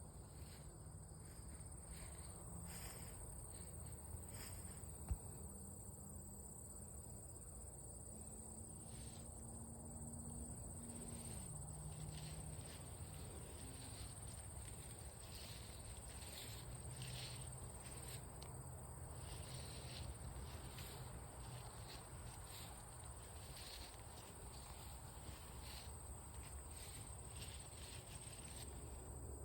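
Faint outdoor ambience of insects, likely crickets, chirring steadily and high-pitched, with soft rustling steps through vegetation and a low steady hum underneath. A single sharp click about five seconds in.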